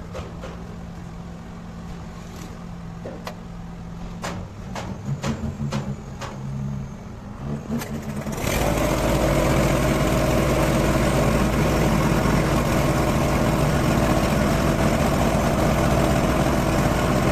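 Nissan UD truck's diesel engine cranking unevenly, then catching about eight seconds in and running steadily and loudly.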